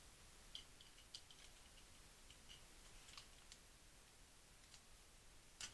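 Near silence, with a few faint small clicks and crinkles of hands handling tape and paper, grouped early on and around the middle, with one slightly sharper click near the end.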